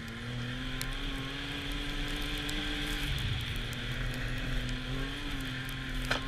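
Arctic Cat snowmobile engine running at trail speed, its pitch drifting up and back down a little as the throttle changes, with rushing wind and snow noise.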